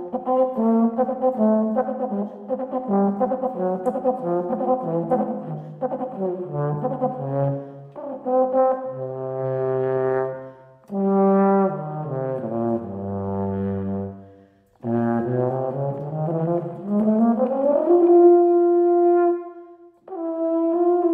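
Solo euphonium playing a melody: quick moving notes, then a drop to low notes, then a rising run up to a long held note. There are short breaks about halfway, around three-quarters of the way and just before the end.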